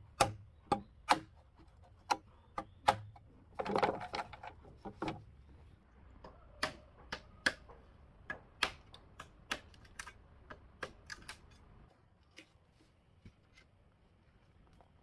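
An irregular series of sharp knocks and clicks, one or two a second, with a short scraping, rustling stretch about four seconds in. The knocks grow fainter and stop about twelve seconds in.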